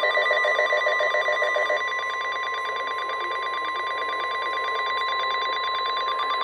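NOAA Weather Radio 1050 Hz warning alarm tone sounding steadily, signalling that an emergency alert (here a severe thunderstorm warning) follows. A lower warbling pattern under it stops about two seconds in.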